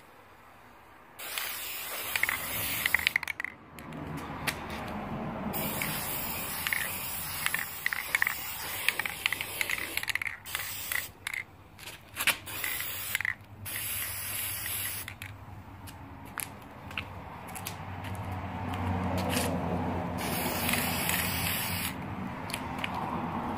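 Aerosol spray paint can hissing in repeated bursts of a few seconds each as paint is sprayed onto cardboard boxes, with clicks and knocks in the gaps between bursts.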